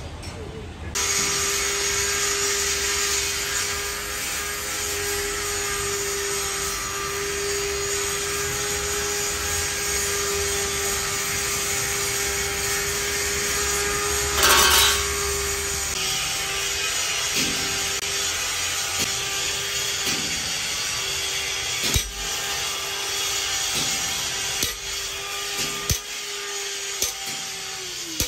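Hand-held power tool running steadily on steel, a constant motor whine over a grinding hiss, with a brief louder burst about halfway; the whine winds down and stops near the end, among a few sharp metal knocks.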